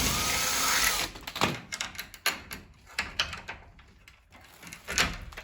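A loud hiss for about the first second, then a string of irregular knocks and clunks as the folding attic stair and its fittings are handled and set in place.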